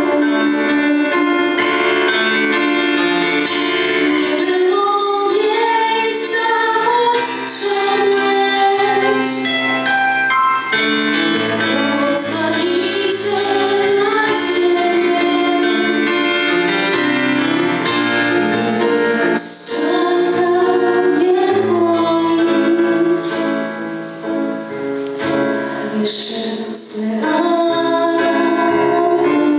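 Women's voices in a small vocal group singing a Polish Christmas carol (kolęda) live, in held, melodic sung lines.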